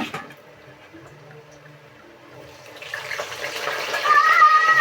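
A sharp clink at the start, then about three seconds in a loud sizzle of raw potato chips going into hot cooking oil, building up as the batch starts to fry.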